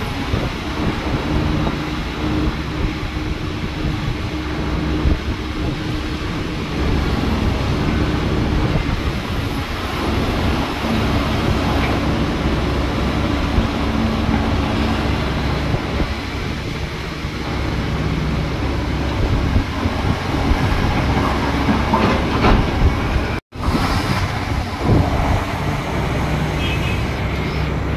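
Heavy diesel excavator engine running steadily, with a deep rumble and a steady engine hum. A few sharp knocks come about three-quarters of the way through.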